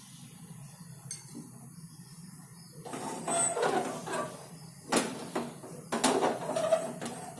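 Metal kadai being shifted on a gas stove's burner grate: metal scraping from about three seconds in, with two sharp knocks about five and six seconds in.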